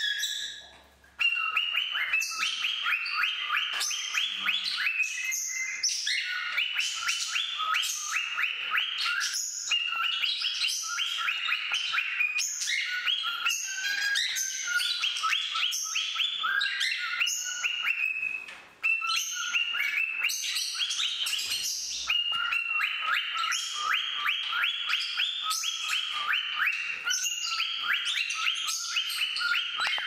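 A cockatiel and a budgie singing together: long runs of fast, repeated chirps, with two short breaks, one about a second in and one around eighteen seconds in.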